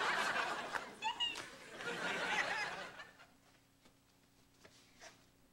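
Sitcom audience laughter, many voices at once, swelling after a punchline and dying away about three seconds in.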